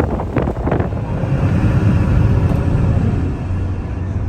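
A steady, low engine rumble.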